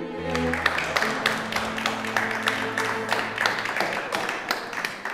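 Audience applauding at the end of a performance, with string music ending underneath in the first second or so; the clapping thins out toward the end.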